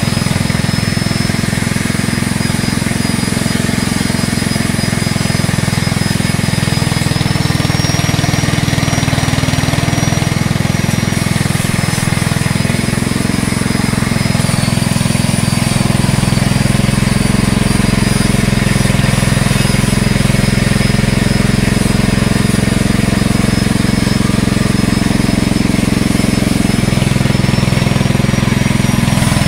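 Small engine running steadily under load, driving a fish-feed pellet extruder that is pushing out floating feed pellets, with a thin high whine that drifts slightly in pitch.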